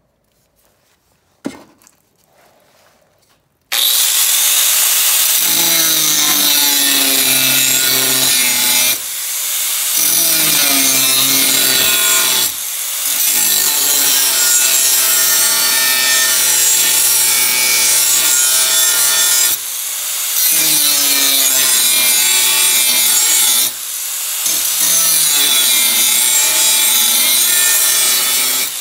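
Angle grinder with a cut-off wheel cutting through a steel circular saw blade: a loud, harsh, continuous grinding that starts about four seconds in and dips briefly four times as the cut eases. Before it, a single click.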